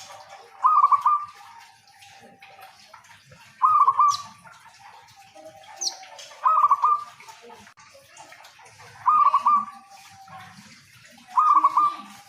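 Zebra dove (local perkutut) cooing: a short quick run of cooing notes, repeated five times at intervals of about two and a half to three seconds. Two brief high chirps come between the second and third calls.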